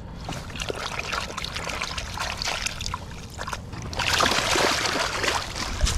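Shallow water splashing and trickling as a striped bass is released at the water's edge, its tail kicking in the wash. The splashing grows louder about two-thirds of the way in.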